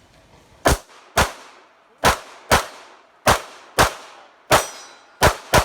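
Glock pistol firing nine shots in quick pairs about half a second apart, each crack followed by a short ringing echo, as a timed string of fire.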